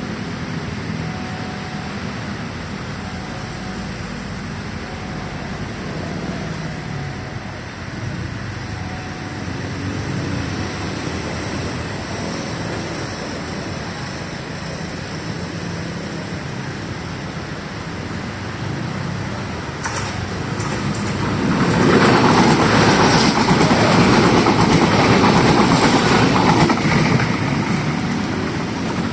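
Indonesian KRL Commuter Line electric train passing: a steady rumble that builds, with sharp clicks about twenty seconds in, then loudest for about five seconds as the cars go by before easing off.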